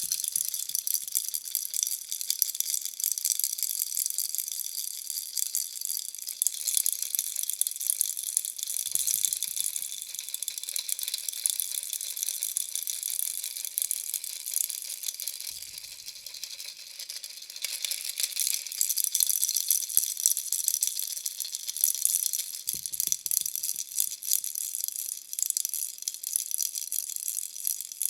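Bunny-shaped baby toy rattle being shaken without a break: a dense, bright rattling that swells and eases in loudness.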